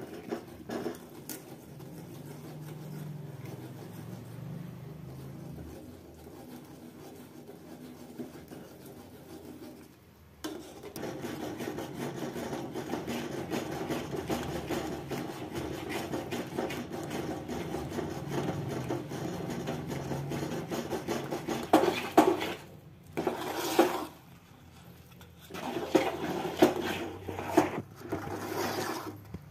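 Spoon scraping and stirring against the sides and bottom of an aluminium pot as gram flour is worked into a thick masala. The stirring is quieter at first, then after a break about ten seconds in turns into dense, fast scraping strokes, with a few louder scrapes near the end.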